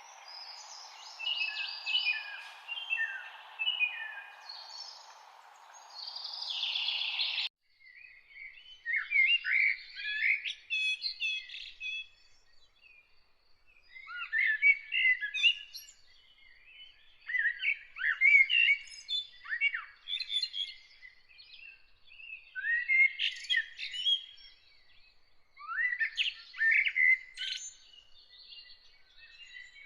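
Songbirds singing: short phrases of quick chirps, trills and sweeping notes, repeated every three to four seconds. For the first seven seconds the song sits over a steady hiss, which cuts off suddenly. After that a faint, thin, steady high note runs beneath the song.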